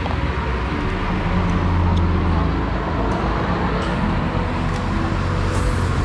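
Steady rumble of road traffic, swelling a little about two seconds in.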